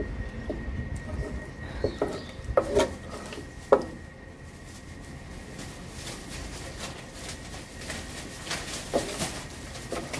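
A spatula and a metal utensil stir thick tteokbokki sauce in a steel tray, scraping and clinking against the pan. The clacks are irregular and come in a cluster between about two and four seconds in, the sharpest near four seconds, with a few more near the end.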